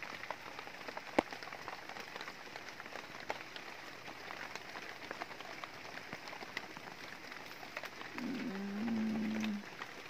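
Light, steady rain falling, an even fine patter with scattered drop ticks and one sharper drip click about a second in.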